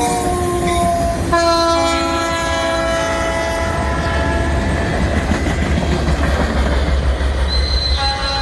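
Freight train led by two EMD SD60 diesel-electric locomotives passing, sounding its multi-note air horn in long blasts. The horn fades about five seconds in, leaving a heavy low rumble of engines and wheels, then sounds again near the end.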